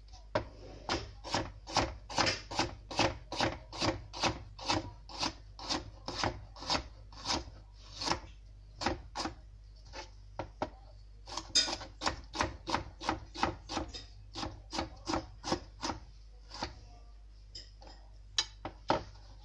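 Kitchen knife chopping green bell pepper on a plastic chopping board, in steady strokes about two to three a second. The chopping breaks off for about a second around ten seconds in, then resumes, ending with a few scattered cuts.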